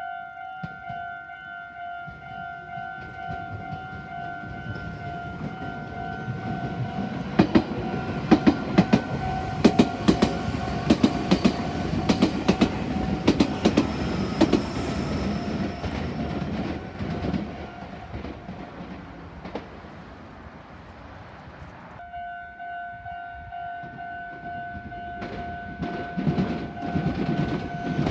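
Japanese level-crossing warning bell ringing steadily. From about 7 seconds in, a Meitetsu Nagoya Main Line electric train passes with a rhythmic clatter of wheels over the rail joints. The bell falls silent, starts ringing again about 22 seconds in, and a second train is heard coming through near the end.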